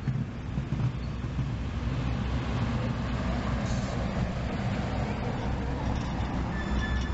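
Rio Grande Ski Train passenger coaches rolling past at low speed: a steady rumble of wheels on rail with scattered clicks. A high squeal sets in near the end.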